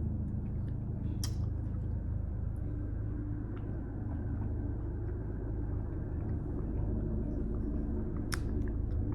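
Helicopter passing overhead: a steady low rumble with a fast rotor beat, growing a little louder later on. A few sharp clicks stand out above it, about a second in and near the end.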